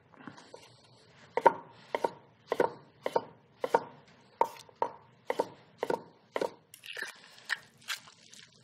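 Chef's knife slicing a ripe tomato on a wooden cutting board: a steady run of cuts, about two a second, each ending in a sharp knock of the blade on the board, starting about a second and a half in.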